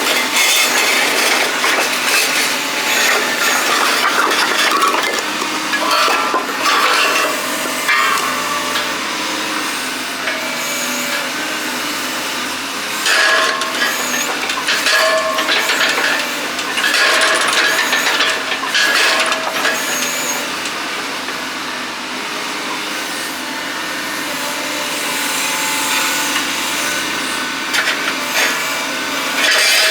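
Steel scoop rake on a John Deere 225D LC excavator scraping and breaking up concrete: continuous grinding and cracking, with sharp knocks scattered throughout.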